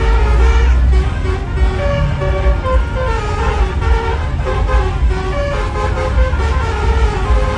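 Indonesian bus 'telolet' musical air horns playing a quick melody of short stepped notes, over a heavy low rumble.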